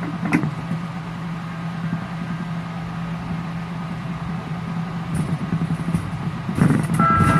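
Steady motor hum of a ride-on miniature train running, with one click shortly after the start. Near the end the rumble grows louder and a steady high tone sounds over it.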